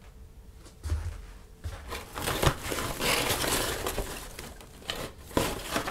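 Shredded paper packing rustling and crinkling as a hand rummages through it in a cardboard box. It starts about a second in and is loudest in the middle, with a couple of light knocks near the end.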